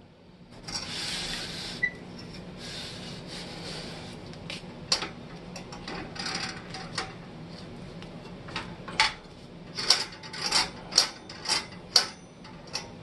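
Antique cast-iron label paster being handled and its crank turned: scraping, rubbing swishes, then a quick run of sharp clicks and knocks in the last few seconds.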